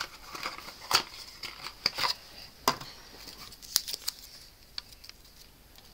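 Handling a roll of glue dots: an irregular run of sharp clicks, taps and crinkles from the plastic roll and its backing strip being picked up and unwound, thinning out near the end.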